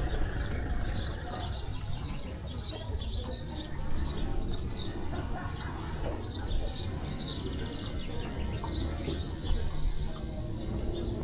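Small birds chirping over and over in quick clusters of high notes, over a steady low outdoor rumble.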